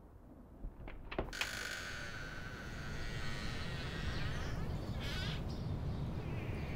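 A front door being unlocked and opened: a few sharp clicks of the key and latch about a second in, then the door swinging open and louder outdoor sound coming in.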